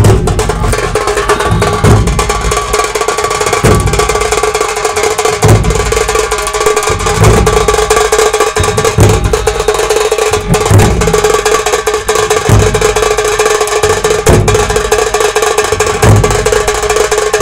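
Dhol tasa drumming: fast, unbroken stick strokes on a tasa kettle drum, its head ringing steadily, over a deep bass drum beat about every second and three quarters.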